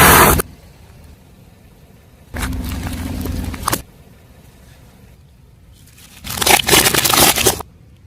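Car tyre rolling over and crushing objects, twice: a rumbling crunch about two and a half seconds in, then a louder crackling crunch of many snaps near the end, each lasting about a second and a half.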